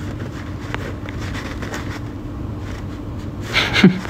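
Steady low mechanical hum of room background noise carrying a faint steady tone, with a brief voice sound near the end.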